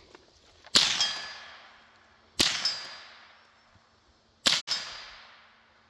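Three single shots from an AR-15 rifle running a CMMG .22 LR conversion kit, each sharp crack about two seconds after the last and each trailing off with a ringing echo.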